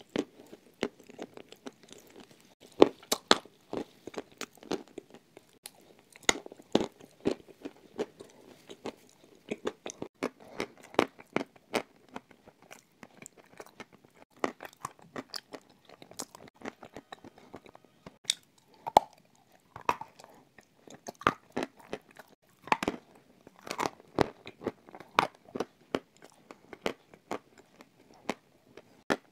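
Close-up crunching and chewing of chunks of edible clay coated in clay paste: many sharp, irregular crunches as the clay is bitten and ground between the teeth.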